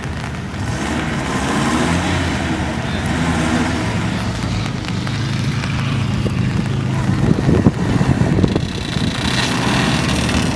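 Off-road vehicle engine running under load, its pitch rising and falling, with a few sharp knocks about seven to eight and a half seconds in.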